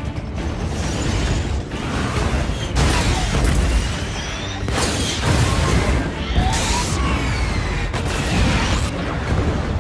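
Film battle sound effects of a warship's guns firing at night: a constant low rumble broken by several heavy blasts about two seconds apart, with whistling shells and tracers passing.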